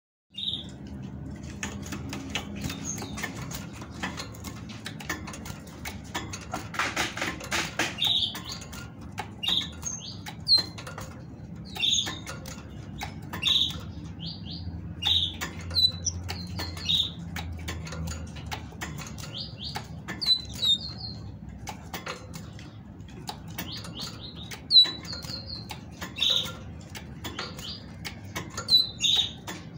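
Female great tit calling in a cage: short high notes at irregular intervals, some in quick runs of three or four, the calls a female uses to prompt males to sing. Wings flutter and claws tick against the perches and wire between the calls.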